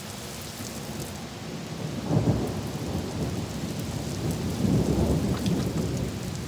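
Thunder rumbling over steady rain, swelling once about two seconds in and again around the five-second mark.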